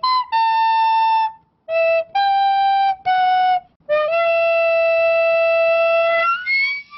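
Music: a simple melody on a flute-like wind instrument, a few separate held notes with short gaps between them, then one long held note that slides upward near the end.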